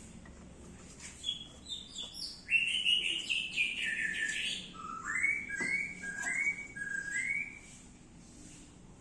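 A songbird singing a fast run of chirps and slurred whistled notes, starting about a second in and stopping near the end.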